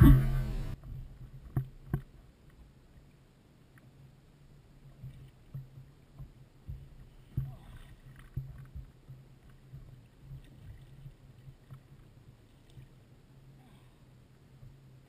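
Music cuts off in the first second. After that, faint water noise around a kayak with scattered knocks on the hull and gear, and light splashing from a hooked smoothhound thrashing at the surface alongside.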